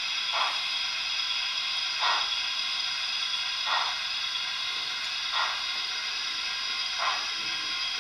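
Zimo digital sound decoder in an OO gauge model of a Stanier Princess Coronation 4-6-2 steam locomotive, playing a steady steam hiss with a soft chuff about every one and a half seconds as the model moves slowly.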